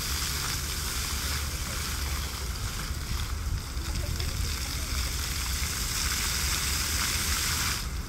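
Fountain jets spraying and splashing into the pool: a steady hiss of falling water that eases a little a few seconds in, swells again, and drops off suddenly at the very end.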